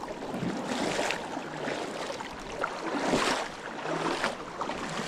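River water rushing and splashing, with louder surges about one and three seconds in.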